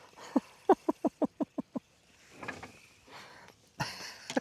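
A man laughing in a quick run of about seven short ha's, followed near the end by a harsh, cough-like burst of breath.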